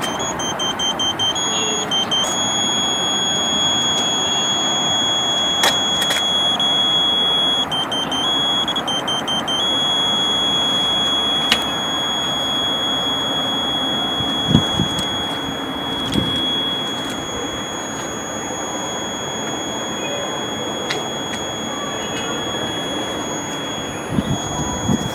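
Pointing buzzer of a Ka-band satellite transceiver: a continuous high-pitched tone that shifts slightly in pitch a few times while the antenna is aimed for signal, over a steady background hiss.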